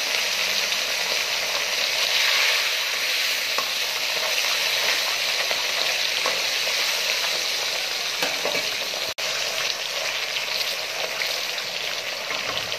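Pieces of food frying in hot oil in a wok: a steady sizzling hiss, with a momentary break about nine seconds in.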